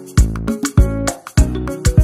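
Background music with a steady beat and held instrument notes.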